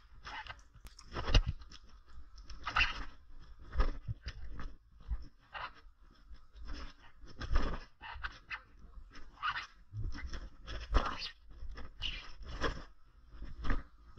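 Footsteps crunching down a steep slope of loose stones, dry twigs and leaf litter, in an uneven run of steps.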